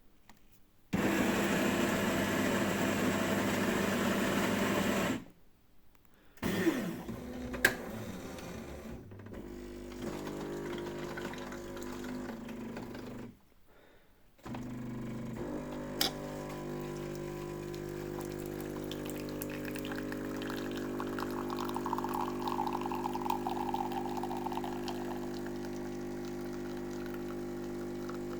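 Jura J8 Twin automatic coffee machine making a coffee. Its grinder runs for about four seconds, then the brewing unit clicks and knocks into place. The pump starts humming, stops for about a second, and then hums steadily as the coffee runs.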